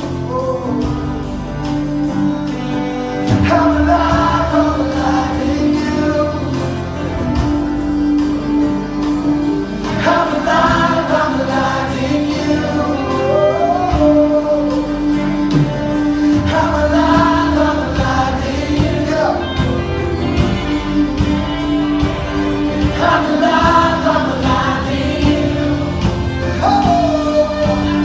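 Live worship music: a band with many voices singing together, the sung phrases returning about every six seconds over a steady accompaniment.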